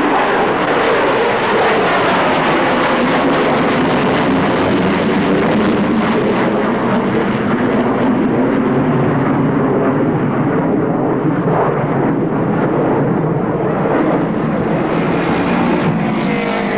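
Concorde's four Olympus 593 turbojets running loud and steady as the airliner climbs and banks away overhead. The sharper upper part of the noise dulls for a few seconds past the middle, then comes back near the end.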